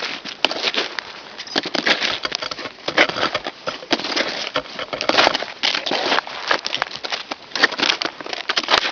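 Snowshoe footsteps crunching in snow at a walking pace, roughly one step a second.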